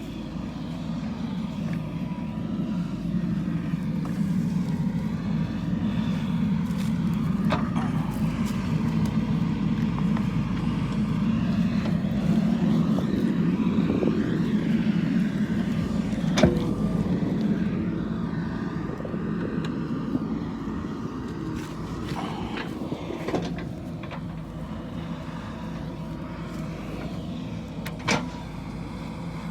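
JCB backhoe loader's diesel engine running steadily under work, its drone building up, holding, then easing off after about two-thirds of the way through. Sharp knocks sound four times, the loudest about halfway.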